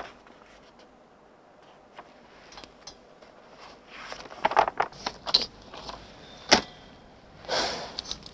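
Small handling noises at a desk: scattered clicks and short rustles of paper and small objects being moved. They come thickest about four to five seconds in, then a single sharp click, and a longer paper swish near the end.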